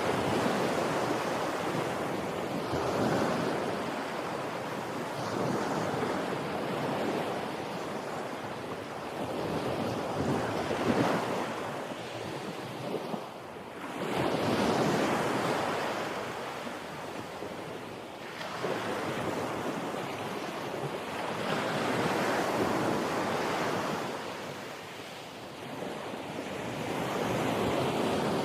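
Ocean waves breaking on a beach, the surf swelling and fading in slow surges every several seconds, one of the loudest about halfway through.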